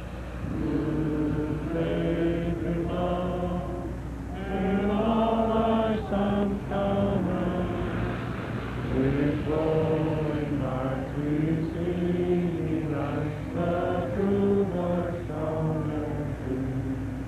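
A crowd of people singing a slow song together, holding each note.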